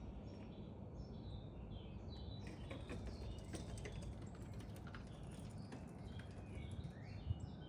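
Small birds chirping repeatedly in short, quick notes, over a low steady background rumble, with a run of faint clicks and taps in the middle and a single sharp tick near the end.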